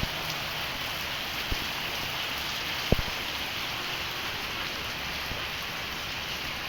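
Heavy rain falling at a steady rate, with a couple of sharp taps about one and a half and three seconds in.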